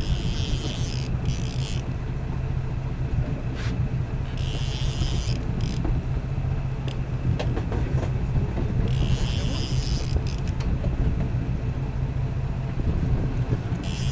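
Boat engine running steadily with a low rumble and hum. Several brief high hissing bursts of about a second each come in over it: one at the start, one about four seconds in, one about nine seconds in and one at the end.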